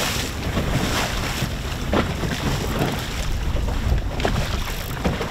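Wind buffeting the microphone over water rushing and splashing against the hull of a moving inflatable boat on choppy sea, with a few brief louder splashes.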